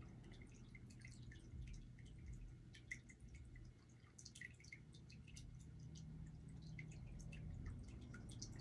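Near silence: low room tone with faint, scattered tiny ticks.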